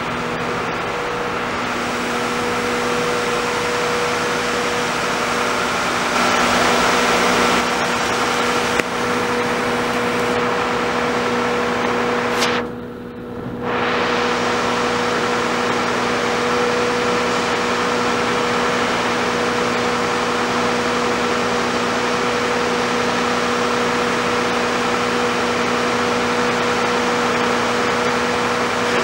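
Stationary R68 subway train humming steadily, its onboard equipment giving off a few steady tones over a noisy drone. The sound briefly dips and loses its hiss about halfway through, then returns.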